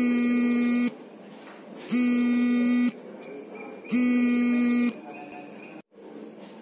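Low-pitched electronic buzzer beeping three times, each beep a steady buzz about a second long, two seconds apart.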